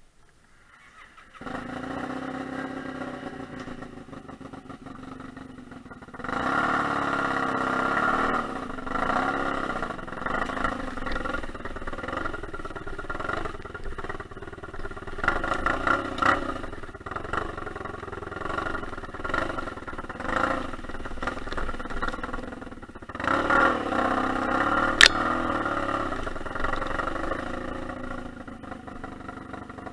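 1989 Yamaha XTZ750 Super Tenere's parallel-twin engine starting up about a second and a half in and idling, then revving up and running with a rising and falling note as the motorcycle is ridden along a rough, rocky trail. One sharp click sounds about 25 seconds in.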